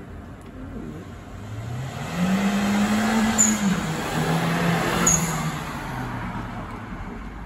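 A turbocharged Toyota Yaris 1.5 VVT-i accelerates hard past and away. The engine note climbs, drops at a shift about three and a half seconds in, pulls again, and drops once more about five seconds in, fading after. Each drop comes with a short hiss from the blow-off valve.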